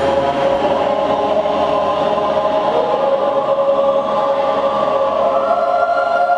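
School choir singing a long sustained chord, with a higher note joining about five seconds in.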